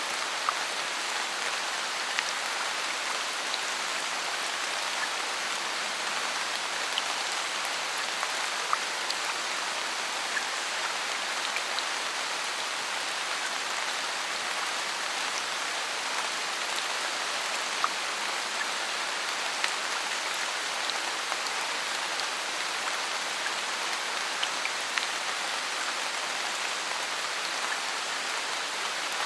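Steady rain falling on forest leaves, with scattered individual drips landing as sharp little taps over the hiss.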